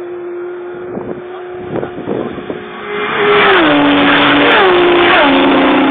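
Racing motorcycle engine at high revs. It is faint with a few brief rising notes at first, then turns loud about three seconds in, its pitch dropping in several steps.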